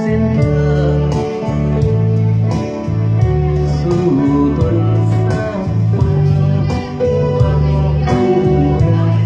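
Instrumental break of a song: a guitar plays the melody over sustained bass notes and a steady drum beat.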